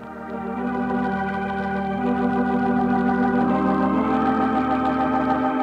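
Organ music bridge between radio-drama scenes: sustained chords that swell in over the first second, with the upper notes stepping up a few times.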